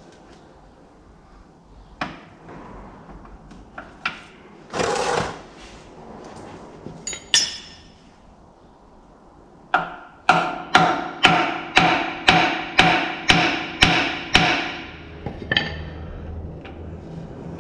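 Hammer striking metal under a tractor engine: a few single knocks and a scrape, then a quick run of about ten sharp ringing blows, about two a second, in the second half, as he tries to free a stuck fitting during the oil drain.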